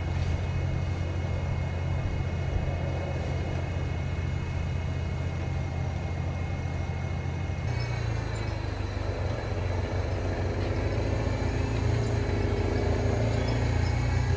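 An engine running steadily, most likely the tractor that pulls the hay trolley's rope. Its note changes about eight seconds in, as the pull comes on and the fork lifts the load of loose hay.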